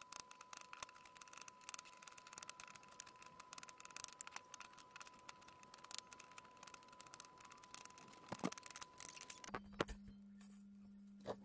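Kitchen knife cutting apples into chunks on a wooden chopping board: faint, irregular light taps and clicks of the blade on the board, over a faint steady high tone. About nine and a half seconds in the taps stop and a low steady hum takes over, with a couple of clicks.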